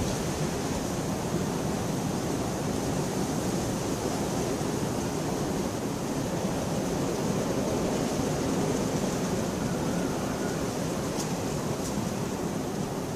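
Steady rain falling, an even dense hiss of drops, with a couple of faint sharper taps a little after eleven seconds in.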